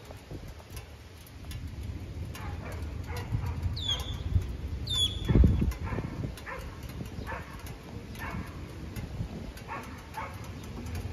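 Short animal calls repeating roughly once a second, over a steady low rumble, with a loud low thump about five seconds in.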